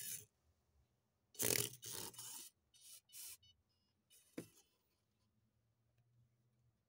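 Turbo Racing micro RC car driving and turning on a wooden desk top: its tiny tyres and drivetrain make short scraping, hissing bursts, five or six of them in the first four and a half seconds.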